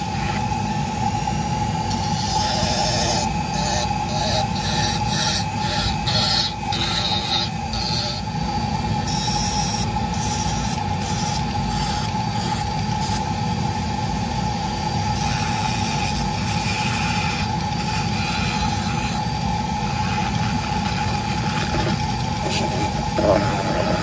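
Rotary carving tool on a flexible shaft running steadily with a constant motor whine, its Kutzall burr grinding into cottonwood to hollow out a carved flower. The rasping of the burr comes and goes as it bites, busiest a few seconds in.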